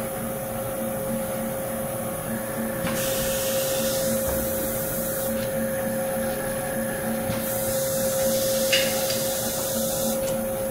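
Seat and guide machine's spindle motor running steadily, with a steady hum and a faster low pulse, while stud holes in an aluminium Fiat 124 cylinder head are drilled out for TimeSerts. Two long hisses come over it, about three seconds in and again about seven seconds in, as the head is moved to the next hole.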